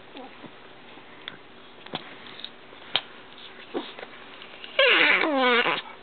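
Yorkshire Terrier giving one loud, drawn-out vocal call that falls in pitch, about five seconds in, after a few soft sniffs and mouth clicks.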